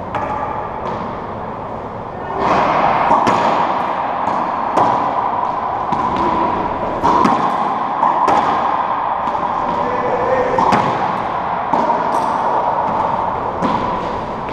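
Racquetball rally: sharp smacks of racquet on ball and the rubber ball hitting the court walls and floor, about one every second, each echoing in the enclosed court. A steady noisy hiss sits under the hits, louder from about two seconds in.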